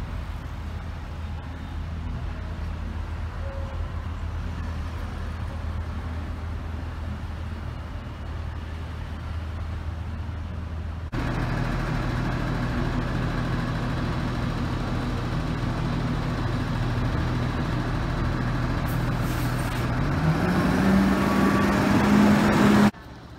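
A motor vehicle engine running steadily with a low hum. After a cut about 11 s in, a louder engine hum rises in pitch and level about 20 s in, as the vehicle revs or pulls away, then cuts off abruptly near the end.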